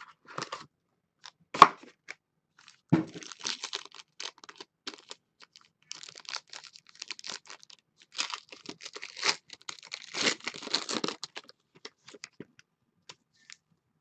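A few sharp clicks and a knock, then a foil-wrapped trading card pack being torn open and crinkled. The crackling is loudest from about eight to eleven seconds in.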